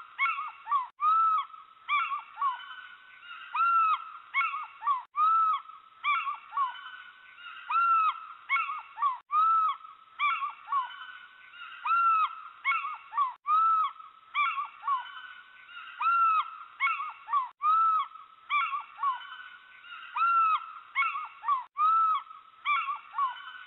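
Owl calls repeated throughout: short, arch-shaped calls that rise and fall, about one or two a second, cutting out abruptly for an instant every four seconds or so.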